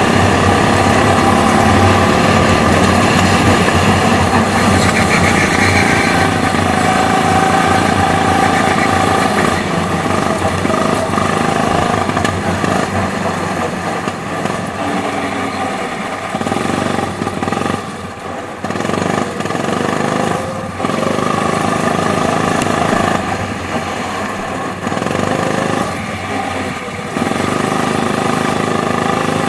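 Go-kart engine running hard on a lap, heard from the kart's own seat. In the second half the engine note dips briefly several times as the driver lifts off for corners, then picks up again near the end.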